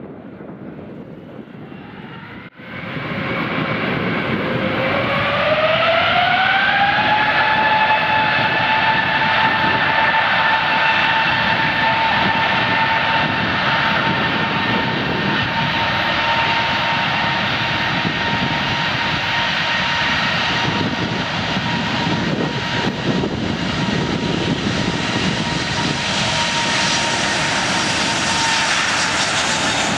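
Airbus A380's four turbofan engines spooling up to takeoff thrust: after a sudden jump in loudness about two and a half seconds in, a whine rises in pitch for a few seconds and then holds steady over a loud rush of jet noise as the airliner starts its takeoff roll.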